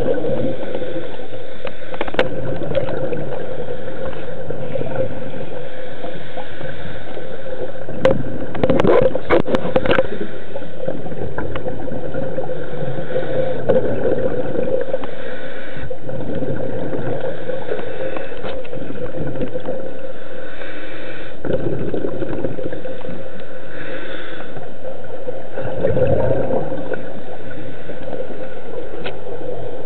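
Underwater sound as picked up by a camera in its housing: a steady muffled hum and wash, with a scuba diver's exhaled bubbles gurgling up louder twice, about eight seconds in and again about twenty-six seconds in.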